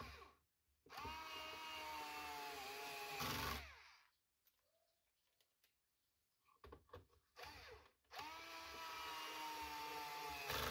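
Cordless electric screwdriver driving screws: two runs of the motor whine, each about three seconds long, with a brief louder burst at the end of each run. Small clicks come before each run.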